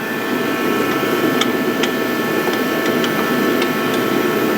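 Steady motor hum with a whine running through it, broken by a few faint irregular clicks.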